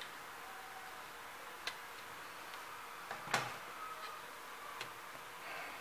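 A few small sharp clicks and taps as a metal laptop hinge bracket is handled and set against the plastic base case, the loudest about three seconds in, over a faint steady hiss.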